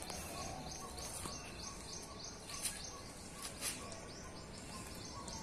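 Outdoor ambience with a high chirp repeating steadily about three times a second and faint birdsong. A few soft taps come through about a second in and again around three seconds in.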